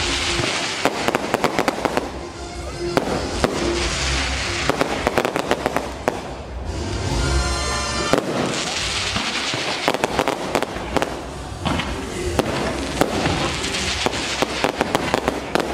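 Fireworks going off in rapid volleys of sharp cracks and pops over a hissing rush, coming in waves every few seconds.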